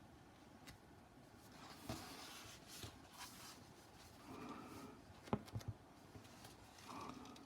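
Faint rustling of heavy book pages being handled and turned, with a few quick light taps about five and a half seconds in.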